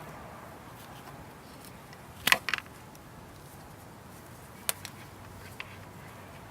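Sharp clacks of hand tools and parts being handled during work on a motorcycle's front brakes and forks: a quick cluster of three or four about two seconds in, then a single clack nearer five seconds and a fainter one after it, over a low steady room hum.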